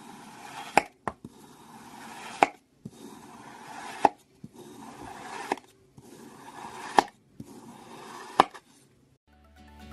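Knife slicing through a block of kinetic sand, six times in a row: each slice is a grainy, crunchy scrape ending in a sharp tap as the blade meets the wooden cutting board. Background music fades in near the end.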